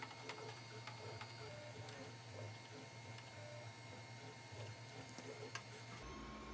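Faint ticking and clicking of a small screw being driven into a 3D-printed PLA plastic frame with a precision screwdriver, over a low steady hum.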